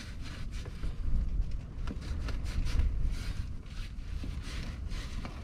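Wind buffeting the microphone in a steady low rumble, with short repeated scraping strokes of a not-quite-sharp fillet knife sliding between skin and meat on a plastic cutting board.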